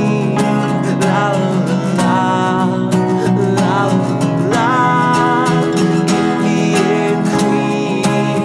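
Acoustic guitar strummed steadily alongside a Korg stage piano playing chords, with a sung melody coming in over them in places.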